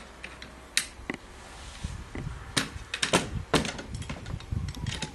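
Metal parts of a BD42/II rifle clicking and knocking as the flash suppressor is fitted onto the muzzle: several sharp clicks and taps, with handling rumble in the middle.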